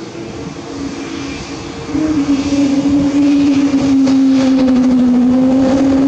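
Airbus A220-300's Pratt & Whitney PW1500G geared turbofans running up for the takeoff roll: a jet drone that grows suddenly louder about two seconds in and holds a steady low hum.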